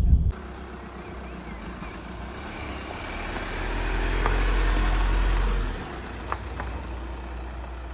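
Low engine hum of a motor vehicle, swelling for a few seconds from about three seconds in, then dropping back as it passes.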